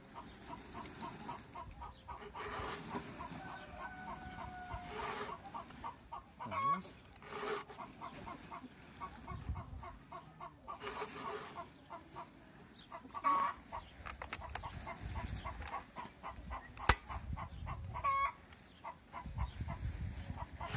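A round chainsaw file rasping across the cutters of a Micul Padurar 5200 chainsaw's chain in a PFERD CS-X sharpening guide, several short strokes a couple of seconds apart, mostly in the first half. Chickens cluck steadily and repeatedly behind it.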